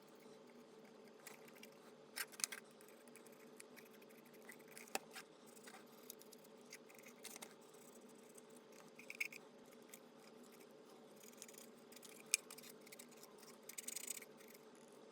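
Faint scattered clicks and short scratches of small handwork on a plastic toy, with a longer scratchy stretch near the end, over a steady low hum.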